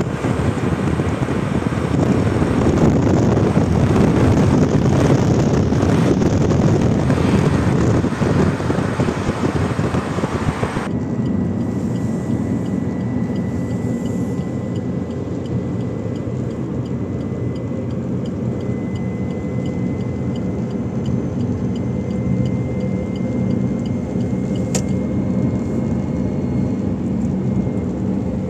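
A car driving at highway speed: loud rushing wind noise at first, then about eleven seconds in it cuts abruptly to a quieter steady hum of tyres and engine heard from inside the car.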